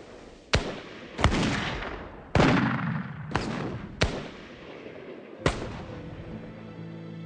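Six gunshots at uneven intervals, each a sharp crack, several followed by a long echoing tail. Soft music comes in near the end.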